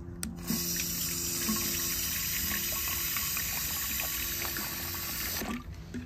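Water running into a plastic foam-sprayer bottle to dilute condenser-cleaner concentrate: a steady hiss that starts about half a second in and cuts off suddenly near the end.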